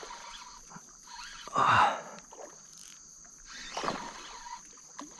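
Water and boat noises while a hooked black bass is fought beside a small rowboat, with one loud burst of splashing about a second and a half in and a smaller one near 4 s. A steady high insect trill runs underneath.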